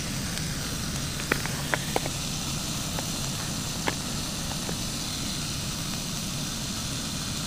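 Camp stove burner running steadily, with sausages sizzling in the frying pan on it. A few light clicks in the first few seconds.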